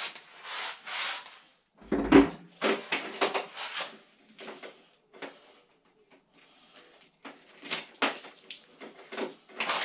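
Handling noises of a fridge's mains cable being freed from where it is wrapped at the back of the appliance: irregular rustles, scrapes and knocks, with a heavier thump about two seconds in.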